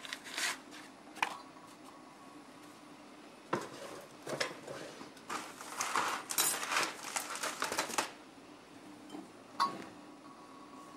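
A white wave paper filter being handled and fitted into a stainless steel Kalita Wave dripper: crinkly paper rustling with light clinks of metal and glass, busiest through the middle, a few sharp clicks near the start and one near the end.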